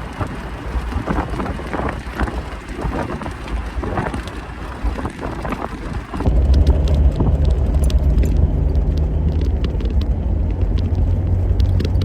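Jeep driving with its top off: wind and road noise rushing past the open cabin, turning abruptly into a louder, deeper rumble about six seconds in.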